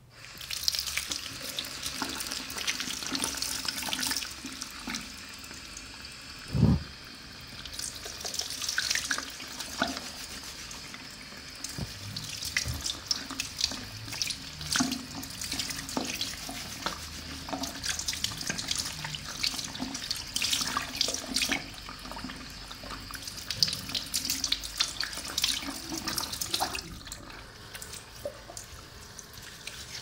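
Tap water comes on and runs steadily, splashing unevenly into a basin. One dull knock about seven seconds in.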